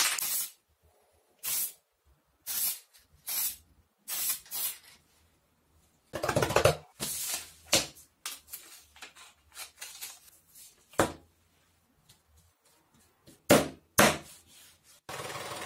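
Aerosol spray paint can hissing in about five short bursts. Then paper rustling and MDF board being handled on a table, with a few sharp knocks near the end.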